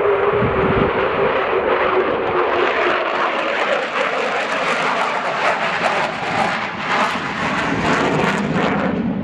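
Sukhoi Su-27UB1M fighter's twin AL-31F turbofan engines in a display pass. A steady whine fades about two seconds in, giving way to a loud crackling roar that drops off near the end.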